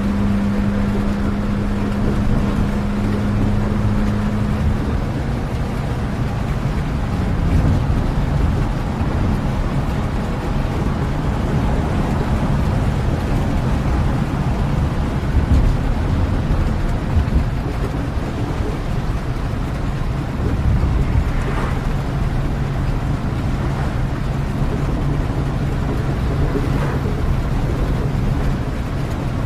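Steady rumbling noise of a vehicle ride in the rain, with an engine hum that drops in pitch about seven seconds in and a lower hum returning later.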